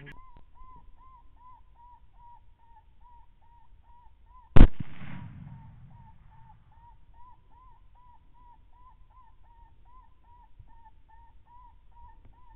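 A single suppressed rifle shot about four and a half seconds in, followed by a short rumbling tail. Under it, a faint steady series of short high chirps repeats about two to three times a second.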